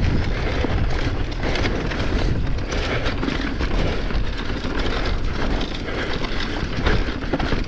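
Electric mountain bike descending a dirt trail: wind buffeting the camera microphone with a steady low rumble, tyres rolling over the ground, and scattered rattles and knocks from the bike over bumps.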